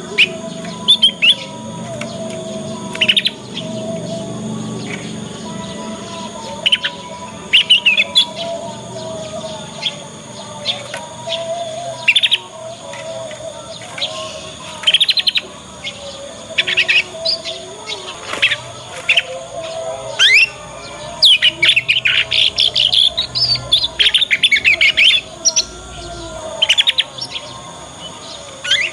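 Young canary twittering its early learning song (ngriwik): short, scattered chirps, then a fast run of rapid chirps about two-thirds of the way through.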